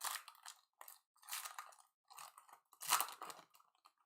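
Panini Mosaic football card pack torn open by hand, its wrapper crinkling and rustling in several short bursts, the loudest about three seconds in.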